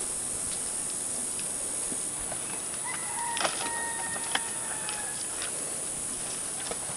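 A rooster crowing once, one long, slightly falling call lasting about two seconds, over a steady hiss. Two sharp knocks sound during the crow.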